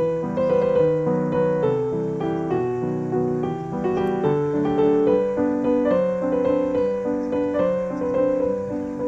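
Background music: a melody over held lower chords, with notes changing a few times a second.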